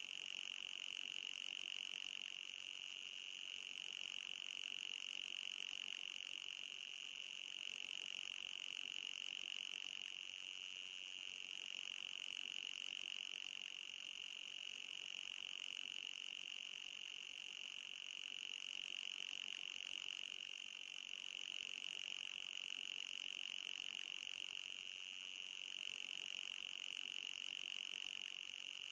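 High-pitched anti-mosquito repellent sound: a continuous buzzing tone that swells and fades slowly in loudness without stopping.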